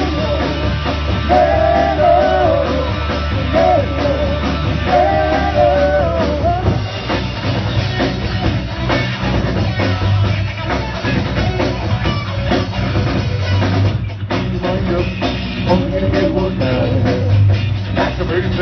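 Rock band playing live and loud, with drum kit, guitars and bass; a wavering lead line stands out over the first few seconds.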